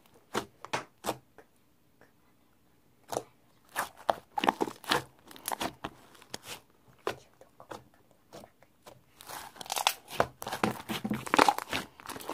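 Irregular crunching and crinkling handling noises made of many short, sharp crackles. They pause briefly near the start and grow denser and louder near the end.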